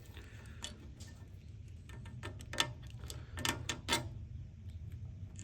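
A few scattered sharp clicks and taps of hand tools and small metal parts being handled, bunched together near the middle and toward the end, over a low steady hum.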